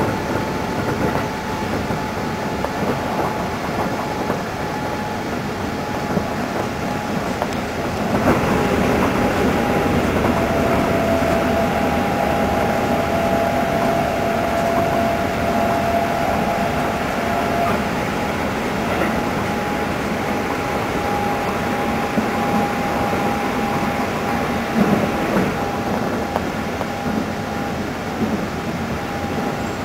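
Keikyu 600 series electric train running at speed, heard from inside the car: a steady rumble of wheels on rail with a steady whine from the running gear. It grows louder about eight seconds in as the train enters a tunnel.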